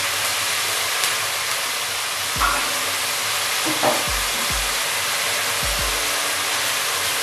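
Chicken pieces frying in hot oil in a wok, a steady sizzling hiss, as fish sauce and soy sauce are poured in. There are two brief louder spits about two and a half and four seconds in, and a few low thumps from halfway on.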